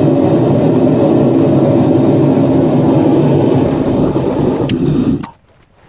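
Propane melting furnace burner running with a loud, steady roar, which cuts off suddenly about five seconds in; a single sharp click follows near the end.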